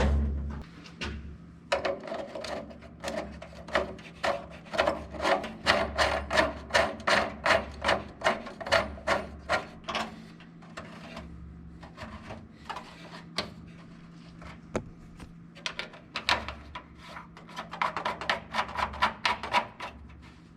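Repeated rasping strokes from hand-tool work, about two to three a second, in one long run and then a second shorter run near the end.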